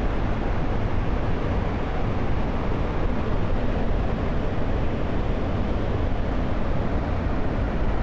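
Large multi-tiered waterfall in heavy flow: a steady, low rushing of falling water with no breaks.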